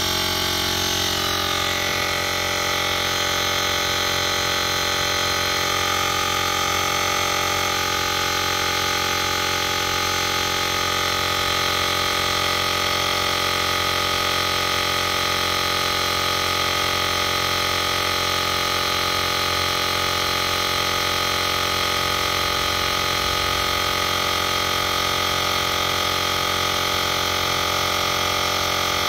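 Portable digital air compressor (model JM-8817) running steadily as it pumps up a tire, a continuous even mechanical drone with no change in pitch or level.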